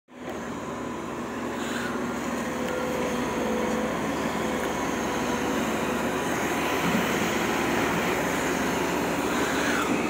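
JCB tracked hydraulic excavator's diesel engine running steadily under load while the boom and bucket work in muddy water.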